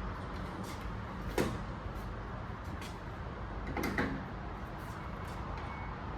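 Handling knocks and clicks of PVC pipe parts being picked up and worked during gluing: two clearer knocks, about a second and a half in and about four seconds in, with fainter clicks between, over a steady background hum.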